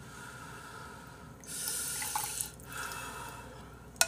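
Janchi-guksu noodle broth ladled from a large bowl and poured into a small bowl with a metal ladle: two short splashy pours, the first about a second and a half in, the second just before the end.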